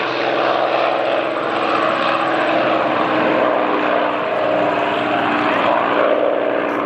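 Mooney single-engine piston airplanes rolling along the runway, their engines and propellers running steadily together as a dense drone of several overlapping engine tones.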